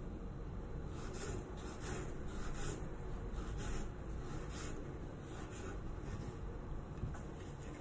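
A knife slicing an onion on a wooden cutting board: short rasping strokes, about one or two a second, at an uneven pace.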